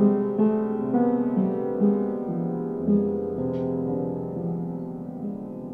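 Improvised piano playing: slow chords struck about every half second and left to ring, with a low bass note coming in about halfway and the playing growing softer toward the end.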